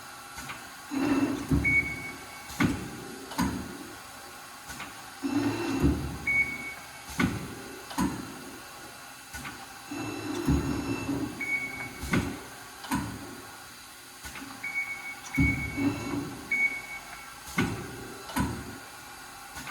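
Amada RG-50 hydraulic CNC press brake running through repeated cycles: sharp knocks every second or two, short bursts of low hum and brief high tones, the pattern repeating every few seconds.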